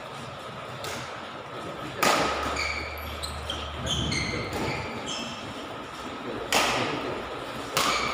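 Badminton rally: sharp racket hits on the shuttlecock echoing in a large hall, a light one about a second in, a hard one about two seconds in and two more near the end. Short high squeaks of court shoes on the floor come in between.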